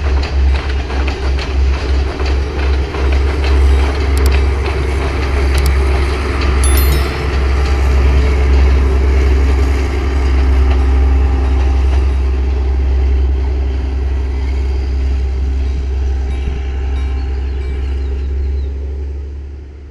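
Diesel-hauled passenger train passing: a quick, regular clatter of wheels over the rail joints for the first several seconds, then a steady heavy rumble and engine drone that fades away near the end.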